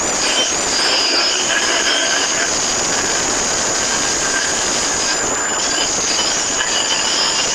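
A steady, loud rushing noise with several high, shrill squealing tones held over it, like metal grinding on metal.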